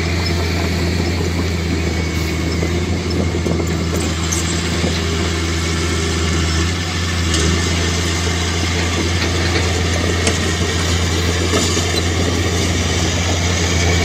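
Diesel engine of heavy earthmoving equipment running at a steady speed with a low, even hum.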